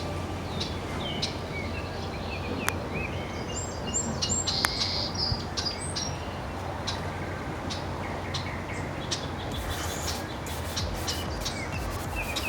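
Small birds chirping in short, high notes, busiest about four to five seconds in, over a steady low background rumble, with a run of sharp clicks near the end.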